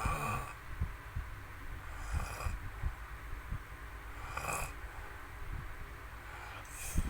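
A person snoring in sleep: a breathy, rasping breath about every two seconds, four in all, over an uneven low rumble.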